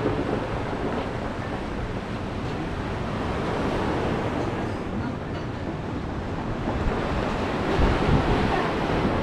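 Sea surf breaking and washing on a rocky shore, a steady rushing noise, with wind buffeting the microphone and a stronger low surge near the end.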